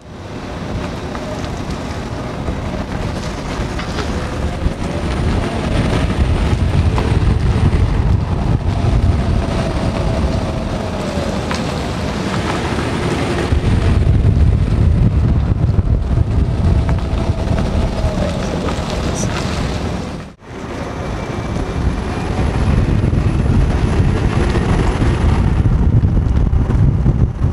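Electric cars driving at low speed: steady road and tyre rumble under a pedestrian warning sound that glides up and down in pitch, with a faint high-pitched whistle from the electric motor under regeneration or acceleration. About twenty seconds in it cuts to another car, where a thin steady high whine runs over the rumble.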